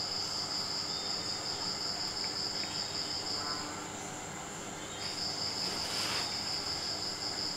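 Crickets trilling, a steady high-pitched chirr that breaks off for about a second midway and then resumes, over a fainter, higher steady trill. A brief soft rustle comes near the end.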